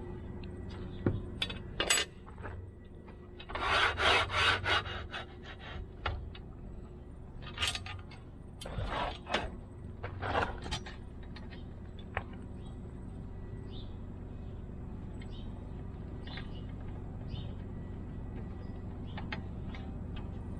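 Metal parts being handled on a steel workbench: scattered scrapes, rubs and light clinks, with a burst of rapid rubbing strokes about four seconds in and more a few seconds later, then only occasional small clicks.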